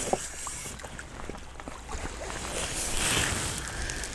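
Light water splashing and trickling at the lake's edge, with a few small clicks.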